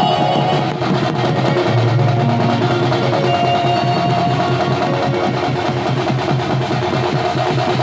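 Sambalpuri badya ensemble playing: several barrel drums beaten in a fast, dense rhythm with small hand cymbals, and a melody of held notes above the drumming.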